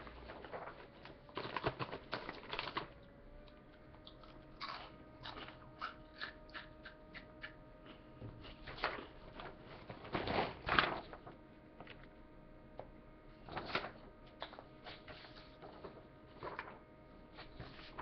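Someone crunching and chewing H-E-B Texas corn chips: a long run of short, crisp crunches, with a few louder crackly bursts, the loudest about ten seconds in.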